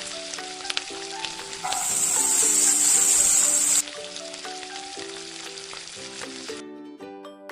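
Food sizzling in a hot frying pan, with a few light clicks of stirring. The sizzle gets louder for about two seconds, then carries on, and stops suddenly near the end.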